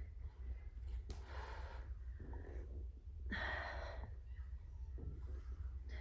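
A woman breathing audibly with exertion: a few breaths, the loudest about three seconds in, over a low steady hum.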